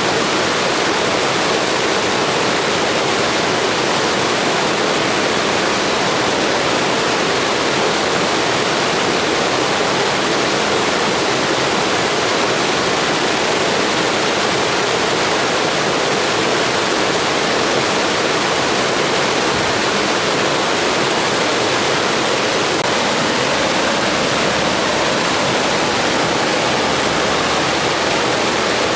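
Steady blizzard wind: an even, unbroken hiss that holds the same level throughout, with no gusts or breaks.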